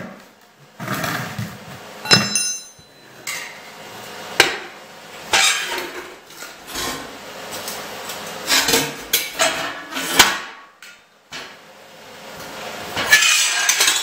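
Chipping hammer striking a stick weld to knock the slag off, in irregular metallic strikes, one ringing out clearly, with scraping on the steel between them, loudest near the end.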